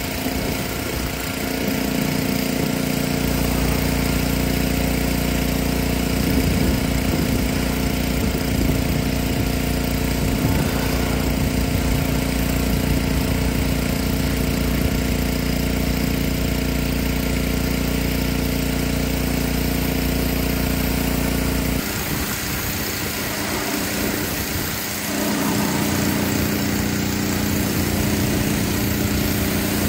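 Gas pressure washer's Honda engine running steadily while its wand sprays a jet of water that hisses against metal siding. The engine note breaks off briefly about three-quarters of the way through and then comes back.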